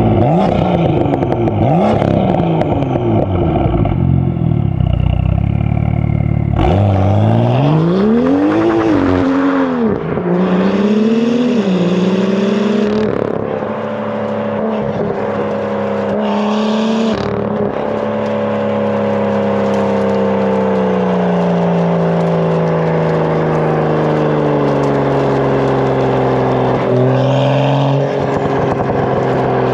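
BMW M2's N55 turbocharged straight-six running through a 3.5-inch straight-pipe exhaust with its valves open. The revs rise and fall several times in the first dozen seconds, then hold a long steady run with the engine note slowly dropping in pitch.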